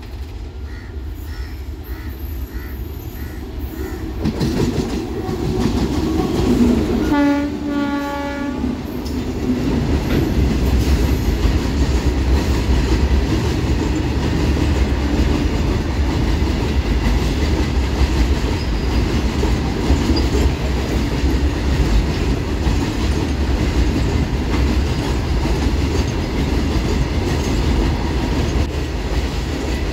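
WAG9H electric locomotive sounds a short horn blast about seven seconds in as it approaches. Then its train passes at speed, a steady heavy rumble of wagons with wheels clacking over the rail joints.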